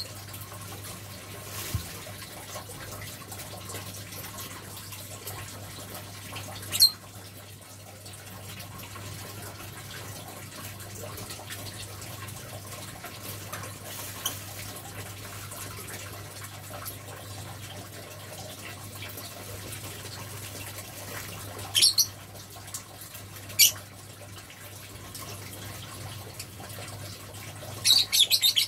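A palm civet moving about in a wire cage, its cage giving a few sharp clicks and rattles, with a quick run of them near the end. These come over a steady hiss and a low hum.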